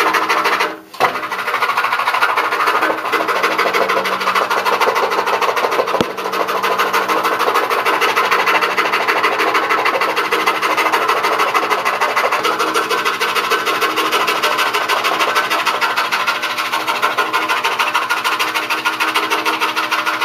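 DeWalt scroll saw running at a slow speed setting, its thin puzzle blade reciprocating rapidly and cutting steadily through a stack of wood veneer. The sound drops out briefly about a second in, then runs on evenly.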